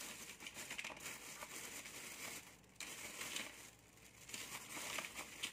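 Faint crinkly rustling and scraping, like hands handling things, that comes and goes and eases off briefly past the middle.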